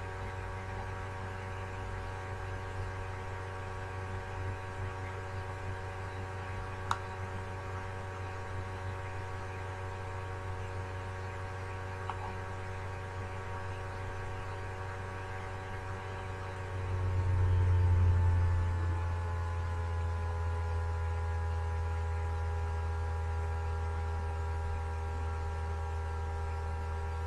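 A steady hum of several even tones over a low drone. About 17 seconds in it swells for a couple of seconds and its tones slide slightly lower, then it settles and runs on steadily.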